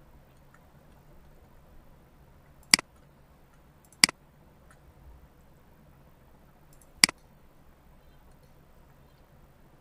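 Computer mouse clicking three times, sharp single clicks about a second and a quarter and then three seconds apart, over a faint steady room hiss.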